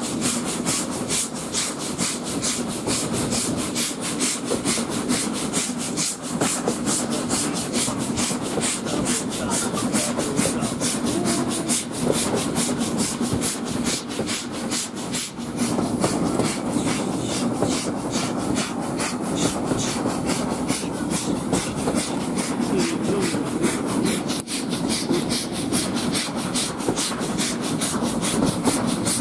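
S&DJR 7F 2-8-0 steam locomotive working hard at the head of its train, its exhaust beating in a steady, rapid rhythm. It is heard from an open carriage window over the running noise of the coaches on the rails.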